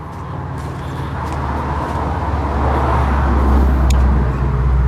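Low engine rumble of a motor vehicle, growing steadily louder.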